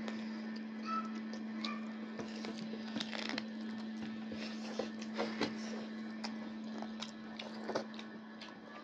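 Eating sounds of people eating rice by hand from steel plates: scattered short clicks, smacks and chewing, over a steady low hum.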